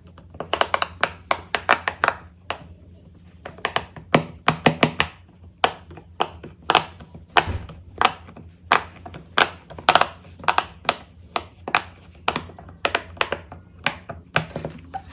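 Bubbles of a large butterfly-shaped silicone pop it fidget toy pressed in by fingers one after another: a run of sharp pops, several a second, with a couple of short pauses.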